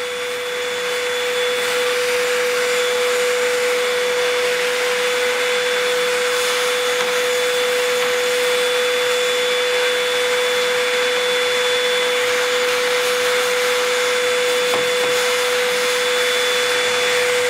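Vacuum cleaner running steadily with a constant whine, its brush nozzle drawn over a bare balsa wing frame to clear sanding dust before covering. It gets a little louder about a second in.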